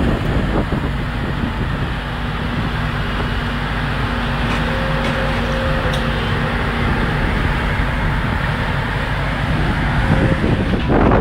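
Diesel engine of a Volvo tracked excavator running as it works its arm in demolition rubble, with a steady hum coming in for a couple of seconds midway and a few faint clicks. A louder rush of noise near the end.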